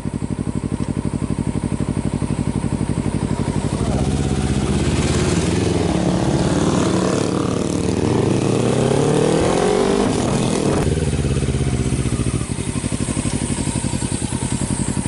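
Motorcycle engine running while being ridden, with wind rushing past. About four seconds in it speeds up and climbs in pitch, then drops back suddenly about eleven seconds in and runs on steady and low.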